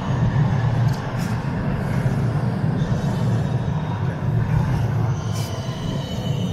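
Tram running on its rails with a steady low rumble, and a faint thin wheel squeal coming in near the end.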